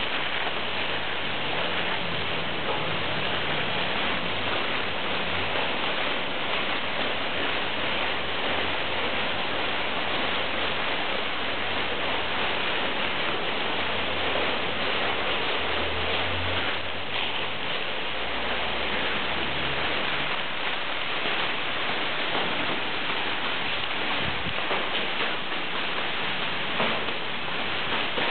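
Many thin plastic bags crumpled and rubbed in a group's hands, a dense, steady crackling rustle made to sound like rain.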